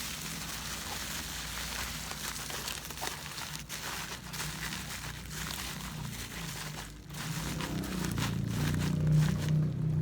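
Crinkling and rustling of packaging material being handled, in short irregular strokes, with a low steady hum that grows louder near the end.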